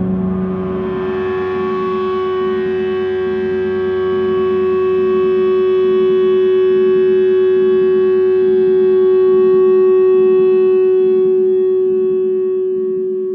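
A sustained electronic drone chord: many steady tones held without any glide, over a lower layer that pulses slowly. It swells gently and begins to fade near the end. This is ambient drone music.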